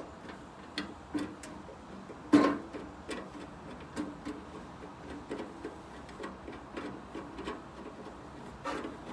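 Irregular clicks and light metallic knocks of hand tools and loose parts while a microwave is taken apart for scrap, with one louder clank about two and a half seconds in.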